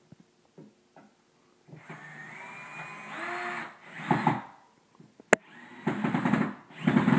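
Cordless drill driving a wood screw through an oak ski rack into a wall stud. The motor starts about two seconds in with a rising whine, then runs in several short spurts. There is a sharp click about five seconds in.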